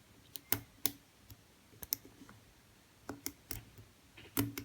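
Small, sharp, irregular clicks of a hook pick working the pin tumblers of a half-euro Basta euro cylinder lock held under light tension. There are about eight clicks, unevenly spaced, with a few close together near the end.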